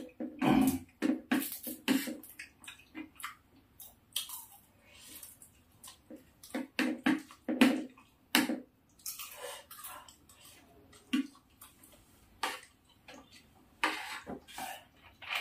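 People eating rice and meat with spoons: wet chewing and smacking, with scattered sharp clicks of spoons on plates, coming in quick clusters about a second in and again around seven to eight seconds in.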